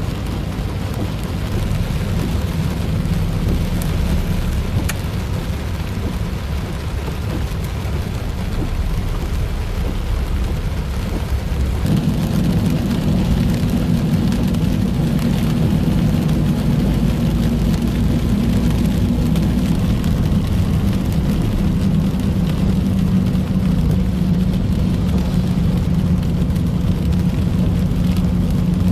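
Heavy rain falling on a moving car, heard from inside the cabin, over a low steady hum of engine and road noise as it drives through wet, flooded road. About twelve seconds in the low hum steps up in pitch and gets louder.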